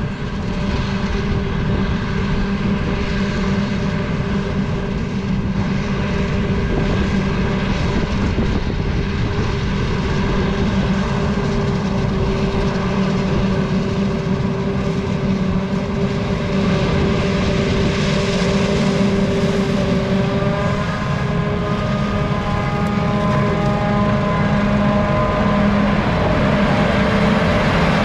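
Claas Jaguar 970 self-propelled forage harvester chopping maize, its MAN V12 diesel and cutterhead drum running under load as a steady machine drone with several held tones, growing a little louder as it comes closer. The pitch of its tones shifts about two-thirds of the way through.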